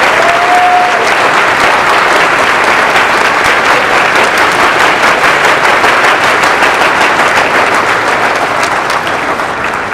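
Large crowd applauding in a hall: dense, steady clapping that thins out slightly near the end.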